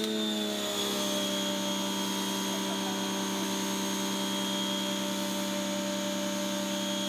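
Electric pressure washer running steadily under load with a constant hum, while the water jet hisses from the trigger gun.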